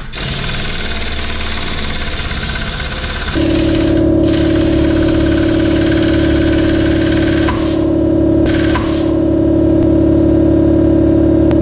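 A loud, steady hiss with a machine running; about three seconds in, a deep steady hum of a motor joins it. The hiss drops out briefly a few times while the hum carries on.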